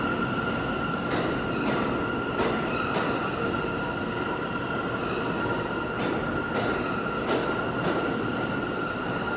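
R179 New York City subway train running through the station along the platform: a steady rumble of wheels on rail with a steady high-pitched whine throughout, and scattered sharp clanks as the wheels cross rail joints.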